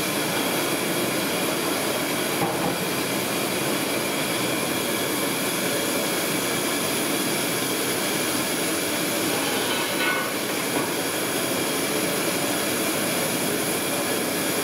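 Steady sizzling of battered chicken pieces deep-frying in several woks of hot oil, with the gas burners under them running.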